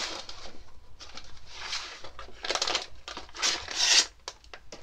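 Plastic packets and the cardboard box of a Popin' Cookin' candy kit rustling and crinkling as the box is opened and the packets are pulled out and handled. The sound comes in several short, irregular bursts, the loudest about three and a half to four seconds in.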